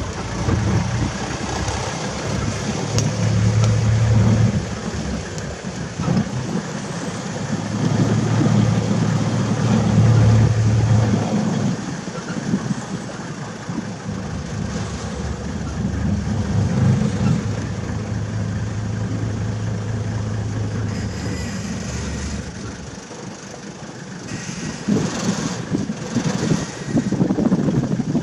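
Open safari vehicle's engine running as it drives slowly along a dirt track, with a low hum that swells and eases, over rumbling road and wind noise. The engine quietens about three-quarters of the way through.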